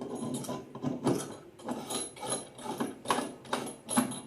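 Parts of a stainless steel mini coffee keg's spear and tap assembly being handled and fitted together, making a run of irregular clicks and clatters, about two a second.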